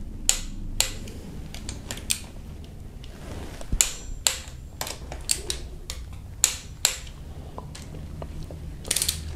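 Click-type torque wrench clicking on 12 mm camshaft cap bolts of a Kia 2.4 GDI cylinder head: a series of sharp single clicks, mostly about half a second apart, with a quick cluster near the end. The wrench's click signals that the set torque of 14.7 newton metres has been reached.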